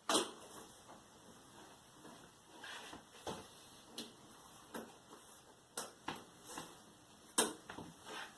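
Scattered light clicks and taps of plastic parts being handled and set in place on a disassembled LED TV's backlight panel, about a dozen irregular knocks, the loudest right at the start and another sharp one about seven seconds in.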